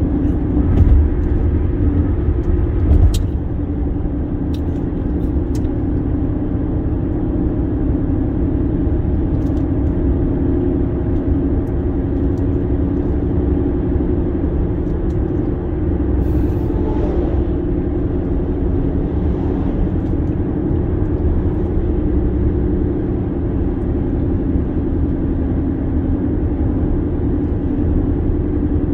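Car driving at highway speed: steady tyre and engine rumble with a constant low hum. Two thumps come in the first few seconds.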